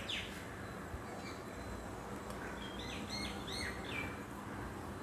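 Small birds chirping faintly: one falling chirp at the start, then a quick run of short chirps about two and a half seconds in, over quiet room background.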